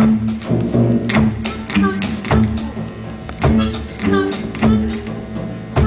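Live blues band playing, with guitar and accented drum or strummed hits landing unevenly every half second to a second over a held low note.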